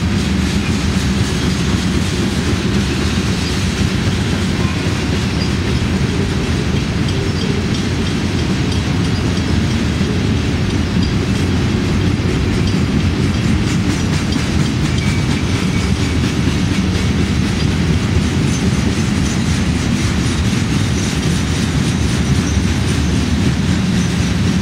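Freight train of covered hoppers and boxcars rolling past close by: a steady rumble and clatter of steel wheels on the rails.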